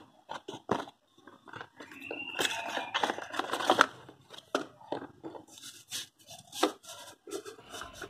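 Small cardboard box being opened and its contents pulled out: irregular taps, clicks and scrapes of card and packaging, with rustling and a brief thin squeak about two seconds in.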